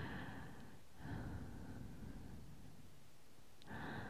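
Slow, breathy exhales close to a binaural microphone: one at the start, a longer one about a second in, and another beginning near the end, with no voice.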